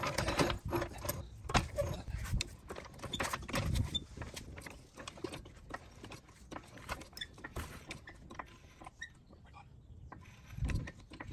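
Hydraulic floor jack (Daytona) being pumped to lift a car: a run of irregular clicks and knocks from the handle strokes, louder in the first few seconds and fainter after.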